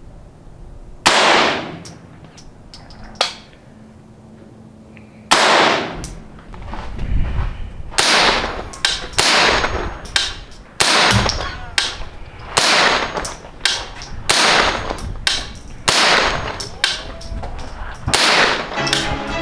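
Semi-automatic .22 LR AR-15 rifle firing: three widely spaced shots in the first few seconds. From about eight seconds in comes a steady string of shots, about one and a half a second.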